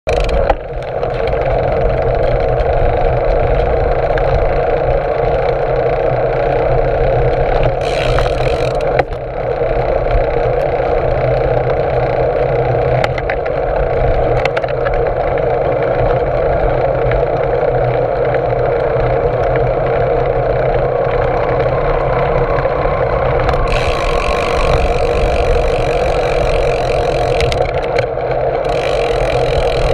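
Steady wind rush and tyre-on-road noise picked up by a GoPro on a moving bicycle's stem, with added hiss for a moment about eight seconds in and again for several seconds near the end.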